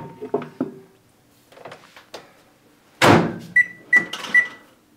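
A lidded bowl set onto a microwave oven's turntable with a knock and a few light clatters, then the microwave door shut with a loud thud about three seconds in. Three short keypad beeps follow as the cooking time is entered.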